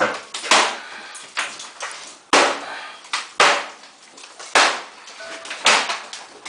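Sledgehammer blows breaking out a wooden wall: about five heavy strikes roughly a second apart, with smaller knocks and clattering debris between them.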